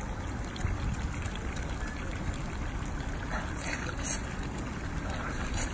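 A steady, noisy outdoor hiss, with a few short wet slurps about three and a half to four seconds in as the soft inside of a cooked octopus head is sucked out.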